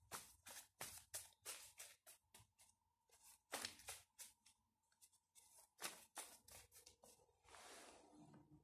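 A stack of paper index cards being shuffled by hand: soft quick flicks and snaps, several a second, sparser around the middle, ending in a longer rustle.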